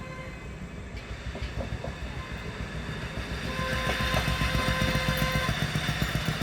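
A small rail car rolling along the track, its wheels rumbling and clicking over the rails and growing louder as it comes closer. A steady high tone is held for about two seconds midway.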